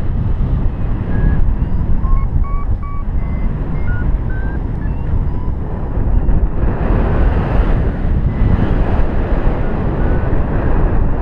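Wind buffeting the microphone in flight under a paraglider, a heavy steady rumble. Over it come short beeps from a paragliding variometer that step up in pitch through the first half and again near the end, the sign that the glider is climbing in rising air.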